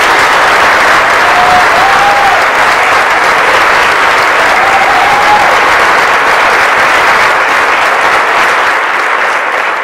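A roomful of people applauding, steady and sustained, with a couple of short calls rising over the clapping.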